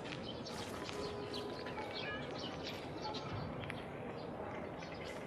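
Small birds chirping and twittering in short calls over a steady background hiss.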